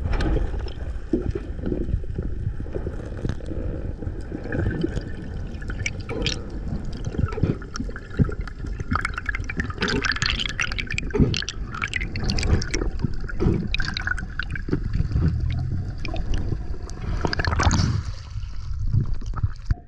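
Water rushing and gurgling against a submerged action camera, with many small bubble clicks and knocks over a low rumble, as a free diver swims up from the reef. There is a louder splash near the end as the diver breaks the surface.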